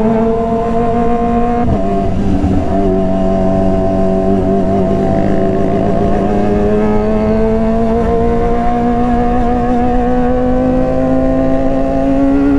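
Kawasaki Ninja ZX-25R's inline-four engine running at high revs through an SC Project aftermarket exhaust, its pitch climbing slowly and steadily under throttle, with a brief dip about two seconds in.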